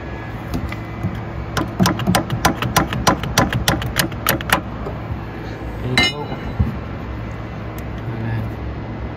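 Hammer tapping metal, about fifteen quick taps in three seconds, as the pinch bolt is driven through the steering shaft's universal-joint yoke. A single harder strike about six seconds in rings on with a metallic tone.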